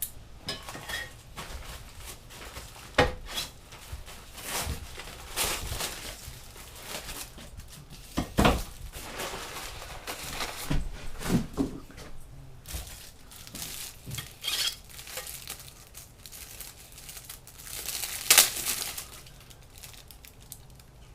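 A package being opened by hand: paper and plastic wrapping crinkling and rustling, with irregular clatter and clinks of a metal lawnmower sprocket being handled and a few louder knocks.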